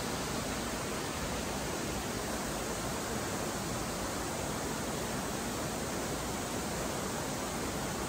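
Waterfall pouring with great force, a steady even rush of falling water, its flow swollen by the previous day's rain.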